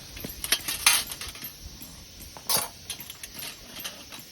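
Metal plates of a South Light Hana-akari fire stand clinking and knocking together as they are handled, with a few clinks about half a second to a second in and a louder one about two and a half seconds in.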